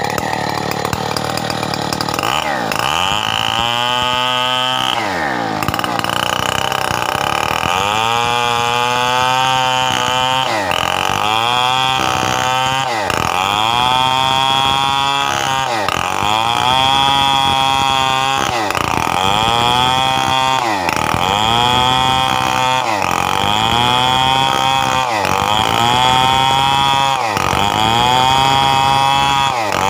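Stihl 070 two-stroke chainsaw cutting coconut wood, its engine held near full speed, then dipping sharply in pitch and climbing back again about every two seconds. The first two seconds are at a steady speed.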